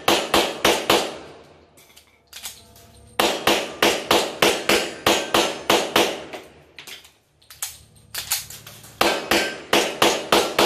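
STI 2011 semi-automatic pistol fired in rapid strings of shots, about four a second, with short pauses between strings. No ring or clang of hits follows the shots, since the targets are rubber plates.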